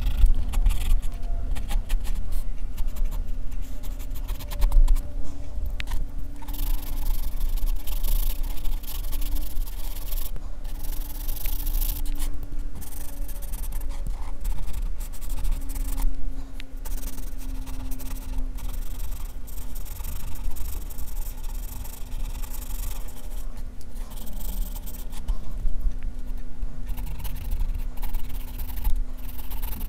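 Graphite pencil scratching across drawing paper in shading strokes, in runs broken by brief pauses.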